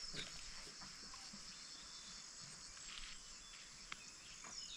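Faint insects chirping in a steady high-pitched buzz, with a few light clicks.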